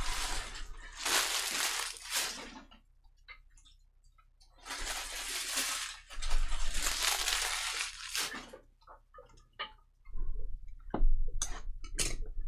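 Baseball card pack wrappers being torn open and crinkled, in two long stretches, followed by a run of short clicks and taps as the cards are handled.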